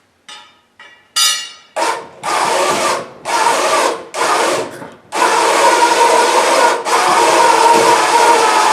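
Motor-driven machinery running with a rough, grinding rub, switched on in several short bursts of about half a second to a second, then held on steadily from about five seconds in.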